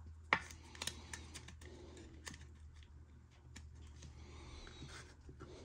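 Soft clicks, taps and light rustling of trading cards being handled and slid into plastic card sleeves, with a couple of sharper ticks.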